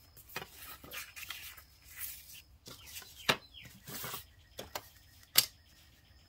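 Paper pages and rulers being handled on a craft table: paper rustling and sliding, broken by a few sharp taps, the loudest a little past three seconds and about five seconds in, as a ruler is set down on the paper.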